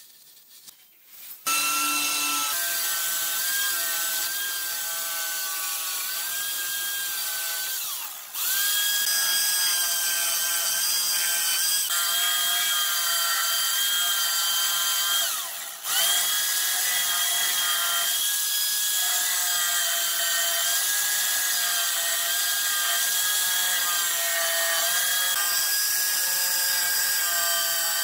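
Corded Makita jigsaw cutting through thin wooden lattice slats: a steady motor whine over the rasp of the blade, starting about a second and a half in and dropping out briefly twice.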